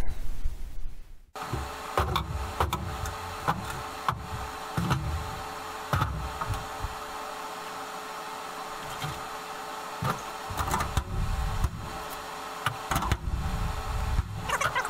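Workshop handling sounds over a steady hum: scattered knocks, clicks and low thumps of hands and tools working on an aluminium fuselage floor and its temporary cleco fasteners. The knocking is busiest early on and again in the last few seconds.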